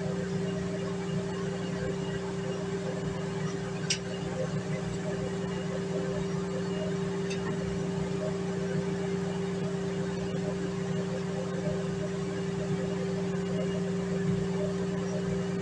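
Steady low hum with a higher tone above it, unchanged throughout, with a single sharp click about four seconds in.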